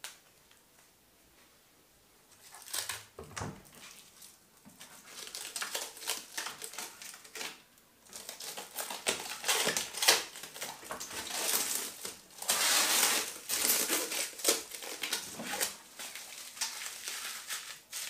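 Plastic protective film crinkling and tearing as it is peeled off a washing machine's door glass, in irregular bursts. It starts a couple of seconds in and is loudest about two-thirds of the way through.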